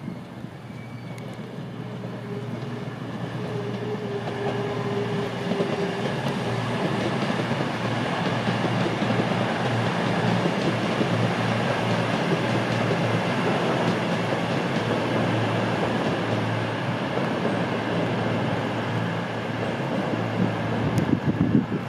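CrossCountry Voyager (Class 220/221) diesel multiple unit running along the platform, its underfloor diesel engines humming steadily over the rumble of the train. It grows louder over the first several seconds and then holds, with a brief higher whine a few seconds in.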